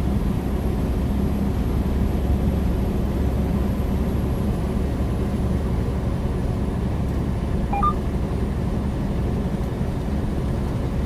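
Steady in-cab drone of a heavily loaded semi truck cruising at highway speed, mostly low engine and tyre-on-road rumble. A short two-note beep sounds about eight seconds in.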